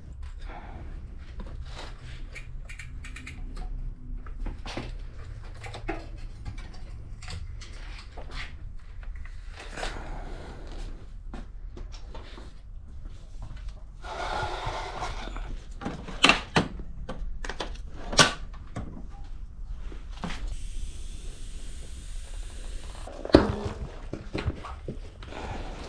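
Clicks, knocks and clatter of hands and tools working on a mountain-bike wheel and tire, with a few sharp knocks and a steady hiss lasting a couple of seconds about three quarters of the way through.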